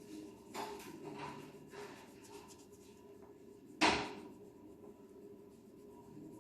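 Faint scratchy strokes of a plastic crayon colouring on paper, with one sharp knock about four seconds in.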